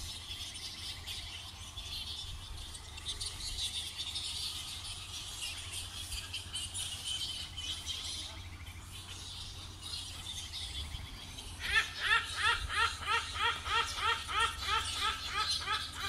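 Dense high-pitched squeaking chatter of bats roosting in the trees. In the last third a hornbill calls a rapid series of repeated rising notes, about three a second, louder than the chatter.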